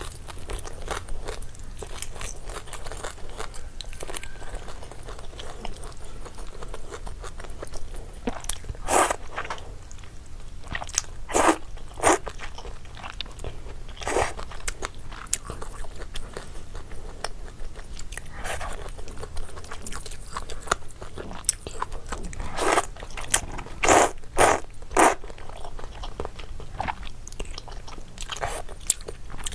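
Close-miked eating of noodles: continuous chewing and wet mouth sounds, broken by several louder slurps, with a cluster of them near the end.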